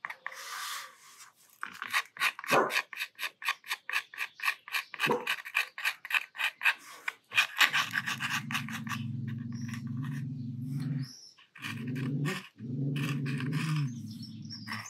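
Steel nib of an ink-free dip pen scratching into damp watercolour paint on cotton-free cellulose watercolour paper: quick, rapid scratching strokes, several a second, through the first half. From about halfway a separate low, steady tone joins, sounding for about three seconds and then again for about two and a half seconds after a short break.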